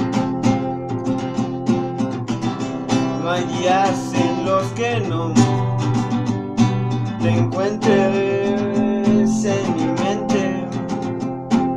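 Acoustic guitar strummed in a steady rhythm, with a man's voice singing over it in two stretches, around the middle and near the end.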